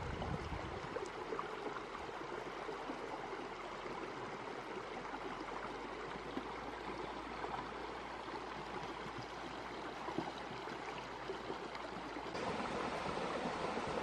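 Shallow rocky stream, water flowing and splashing steadily over stones; about twelve seconds in the sound shifts, becoming slightly louder and fuller.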